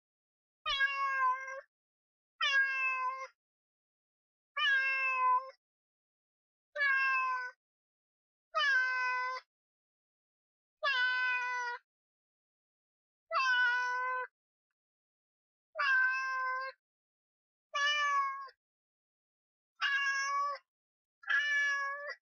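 Domestic cat meowing over and over: about eleven separate meows, each just under a second long and falling slightly in pitch, spaced a second or so apart.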